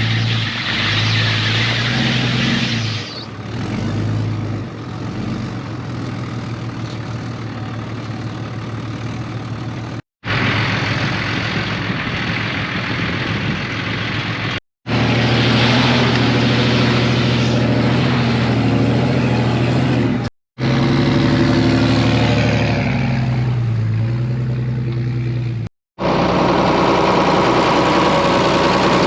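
Engine running steadily, heard in several short clips split by brief cuts to silence; its pitch shifts a little between clips.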